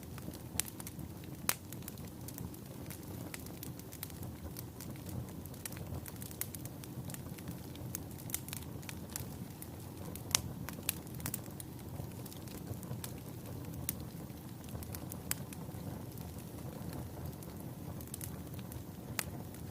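Wood fire burning in a fireplace: a steady low rumble of flames with irregular crackles and pops, a few sharper pops standing out.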